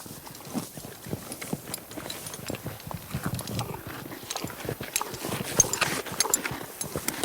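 Horse grazing: grass tearing and crunchy chewing, heard as a dense, irregular run of short crunches with dull low thumps among them.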